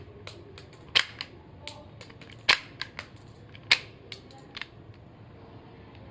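Shell-ejecting toy Glock 17 blaster being test-fired semi-auto: three sharp, loud snaps about a second or so apart, with lighter clicks of the action in between.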